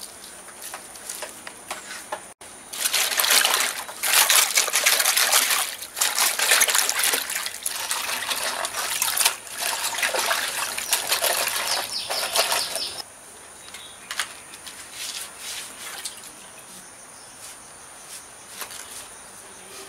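Water splashing and sloshing as cabbage leaves are washed by hand in a stainless steel bowl. It starts about three seconds in and comes in uneven surges, then stops about thirteen seconds in, leaving only faint scattered taps.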